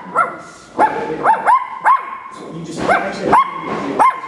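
Two-month-old puppy letting out a string of short, high yips and barks in quick bursts of two to four, a drawn-out vocal 'rant' that the owner takes for the puppy complaining for attention.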